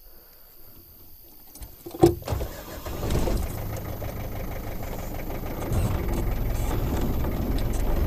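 A sharp click about two seconds in, then a Land Rover's engine starts and runs with a steady low rumble that grows a little louder near the end.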